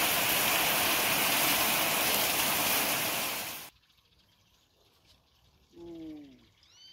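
Heavy rain pouring down onto a patio and waterlogged ground, a dense steady hiss that cuts off suddenly a little over halfway through. After it, quiet outdoor air with one short call falling in pitch near the end.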